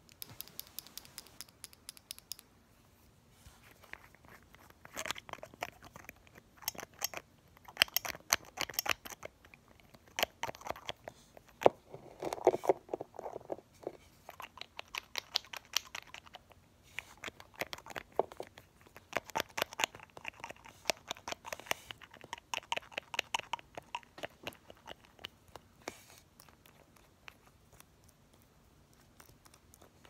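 Nail polish brush and cap pumped up and down in a small glass bottle: quick runs of clicks in bursts of a few seconds each, which stop a few seconds before the end.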